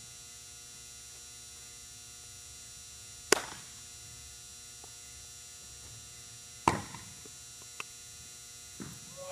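Two sharp pops of a baseball smacking into a leather glove, about three seconds apart, over a steady low hum.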